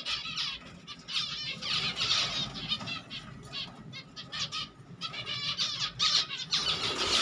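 Finches chirping in quick, repeated high trills, with a brief lull about five seconds in.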